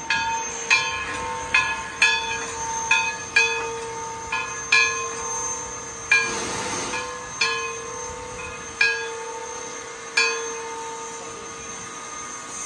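Bell of East Broad Top No. 16, a steam locomotive, ringing as the engine moves slowly: strikes come about twice a second at first, then slow to one every second and a half and stop near the end, the last one ringing out. A short hiss of steam about six seconds in.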